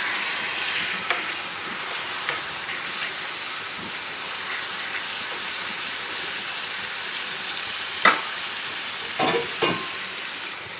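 Keema (minced meat) sizzling and steaming on a hot tawa with a little water just added, a steady hiss that slowly eases. A few sharp knocks against the tawa come near the end.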